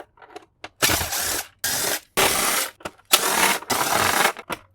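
Cordless drill or power screwdriver running in about five short bursts, backing screws out of a plastic boombox case.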